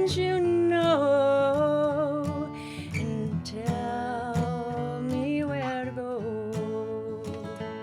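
Folk song: a woman singing long held notes that glide between pitches, over strummed acoustic guitar.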